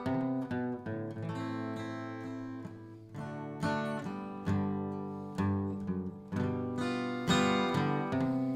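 Acoustic guitar playing a folk ballad's instrumental introduction, with chords struck one after another and left to ring out and fade between strokes.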